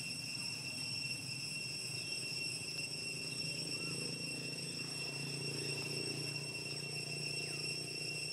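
Steady, unbroken high-pitched insect drone, with a low steady rumble underneath.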